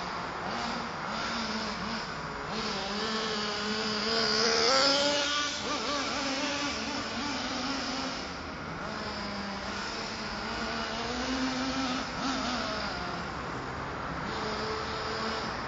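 Nitro RC monster truck's small two-stroke glow engine running as the truck is driven around, its pitch rising and falling with the throttle. It revs up to its loudest about five seconds in.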